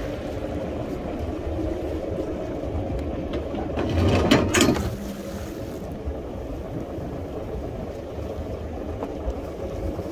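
Fishing boat under way: a steady low engine drone and water rushing past the hull, with a louder rush of noise for about a second, about four seconds in.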